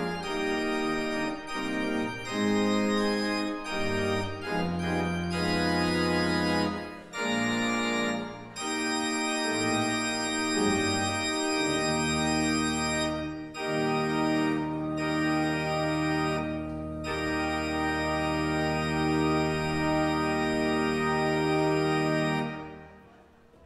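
Church organ playing the closing postlude: sustained chords over a moving bass, then a long final chord with a deep bass note held about ten seconds. Near the end the chord is released and the sound dies away in the sanctuary's reverberation.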